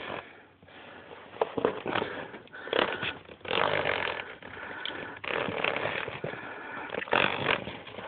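Rustling and light knocks of a hand working among plastic DVD cases on a shelf, with breathing close to the microphone in irregular breaths.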